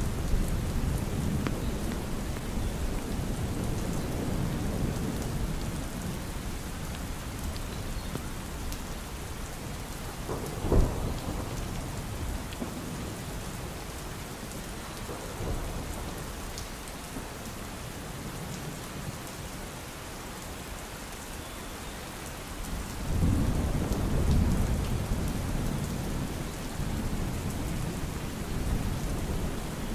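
Steady rain falling, with low rolling thunder that rumbles at the start, fades, and swells louder again about two-thirds of the way through. A single sharp thud stands out about a third of the way in.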